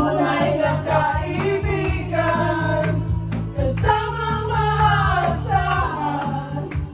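Group karaoke: several voices singing together into microphones over a played backing track.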